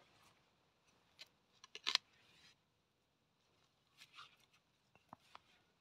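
Garden fork digging in loose soil to lift potatoes: a few short scrapes and crunches of the tines and clods, the loudest cluster about two seconds in.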